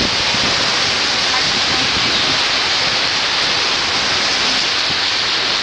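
Heavy rain pouring down in a storm: a loud, steady hiss.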